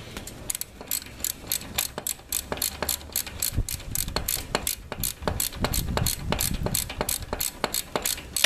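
Socket ratchet clicking steadily, about four or five clicks a second, as it backs out a motorcycle's crankcase oil drain plug.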